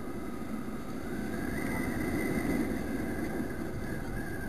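Motorbike engine revving up as the rider accelerates, its pitch rising about a second in and the running noise loudest near the middle, over steady wind and road noise.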